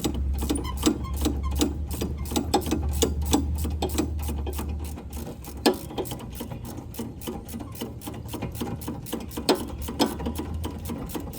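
Ratchet wrench clicking rapidly as it backs out the brake caliper bolts, with a low hum for about the first five seconds.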